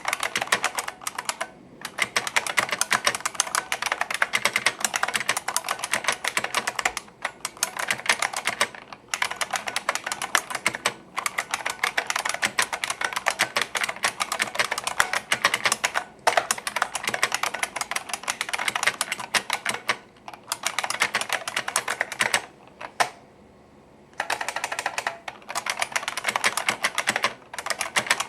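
Continuous rapid typing on a 1993 IBM Model M keyboard, each buckling-spring key giving a sharp click as it is pressed. The typing breaks off briefly several times, with one longer pause of about a second and a half about three quarters of the way through.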